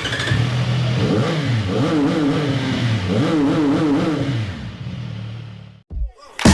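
CFMoto 675SR-R's three-cylinder engine idling and revved twice by the throttle, each blip rising, wavering at the top and dropping back to idle before the sound fades out.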